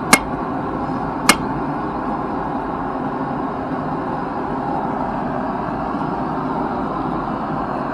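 Two ringing hammer blows on steel, about a second apart, near the start, over the steady rushing noise of a running forge.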